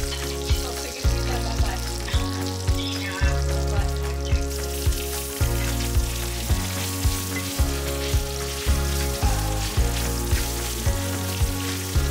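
Ribs sizzling and frying in a cast-iron skillet as they are stirred with a wooden spatula, with tomato paste in the pan. Background music with a steady beat of about two a second plays over it and is as loud as the frying.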